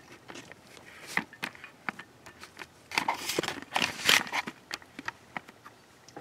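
Light clicks, knocks and rustles of objects being handled and moved, a quick run of them about three to four seconds in.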